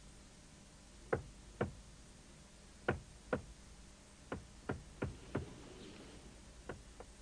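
Knocking on a wall: about ten sharp, separate knocks, first two pairs, then a quicker run of four, then two fainter ones near the end.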